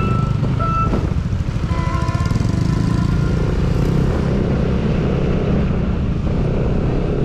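Motorcycle ride in traffic: a steady low rush of wind and engine noise, with a few short, steady high tones in the first two seconds.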